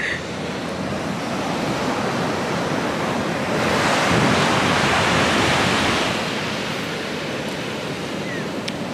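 Ocean surf: waves washing ashore, one swelling louder about halfway through and then easing off, with wind buffeting the microphone.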